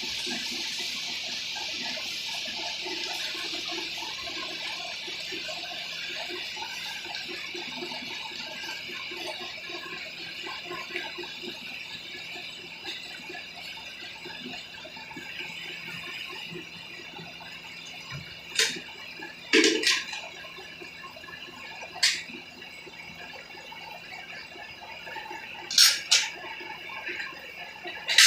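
Milking: milk streams hissing into a pail with a steady rhythm, the hiss slowly fading as the animal's udder empties. A few sharp knocks come in the second half, two of them close together about two-thirds of the way through and one near the end.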